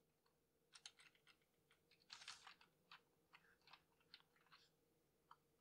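Very faint computer keyboard typing: scattered light key taps, with a quick cluster about two seconds in.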